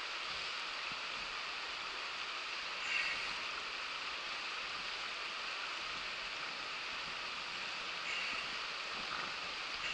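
Shallow, rocky river running over stones: a steady rush of flowing water, with a brief louder blip about three seconds in.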